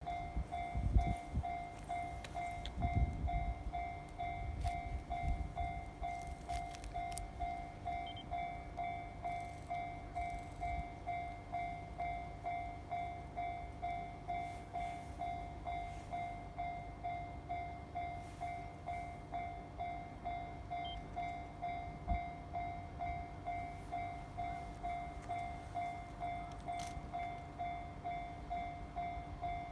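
Japanese railway level-crossing warning bell ringing steadily, a little under two dings a second, signalling that a train is approaching. A low rumble sits under it in the first few seconds.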